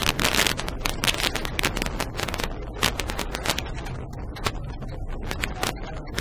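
ASK 21 glider rolling out on its wheel over a grass strip, with a low rumble and rattling knocks as the airframe bumps over the ground. The knocks come thick and fast at first and thin out as the glider slows.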